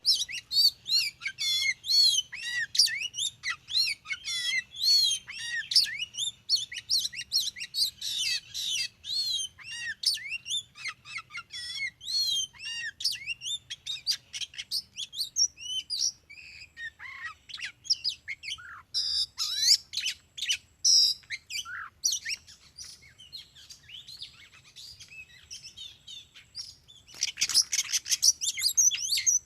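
Oriental magpie-robin song: rapid, varied whistles and chirps that are dense for the first half, then come in sparser phrases, with a fast rattling burst near the end.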